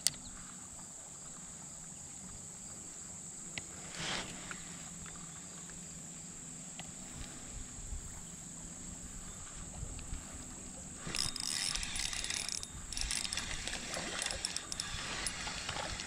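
Quiet river ambience with a steady high insect drone, a short knock about four seconds in, and from about eleven seconds in a few seconds of rattling and splashing as a fish is worked in beside a kayak on a spinning rod.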